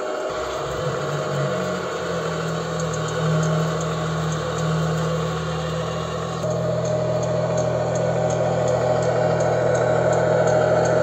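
Model truck's electronic sound unit playing a diesel truck engine through its small speaker, coming up about half a second in and then idling steadily as a low hum. A light, regular ticking runs alongside it.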